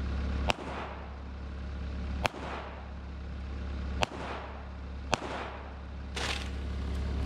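Four pistol shots from a Springfield 1911 Range Officer, unevenly spaced over about five seconds, each ringing out with a short echo, fired to cut through an overhead oak branch. A skid steer engine runs steadily underneath as a low hum.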